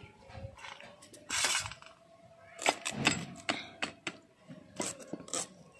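Onions being sliced against an upright bonti blade, each cut a short crisp click, coming irregularly about half a dozen times.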